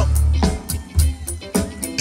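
Funky electric bass guitar solo: deep, punchy bass notes with the drum kit keeping time in sharp hits about every half second.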